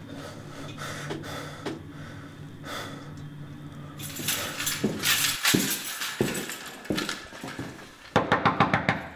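A quick run of sharp knocks of a fist on a door, about eight in under a second, near the end; before that only faint, quiet sounds.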